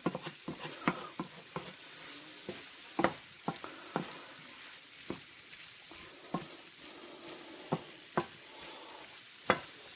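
Orange chicken sizzling in a frying pan while it is stirred, with irregular knocks and scrapes as the utensil hits the pan.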